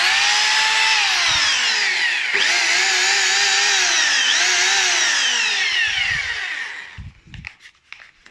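Stanley 26 mm hammer drill run without load: the motor whines up to speed, coasts down, is triggered again about two and a half seconds in, then winds down over the last few seconds.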